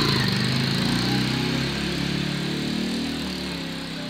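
Rusi KR150 motorcycle engine pulling away and fading steadily as the bike rides off.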